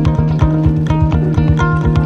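Background music: a quick, even pulse of plucked notes over a held bass note.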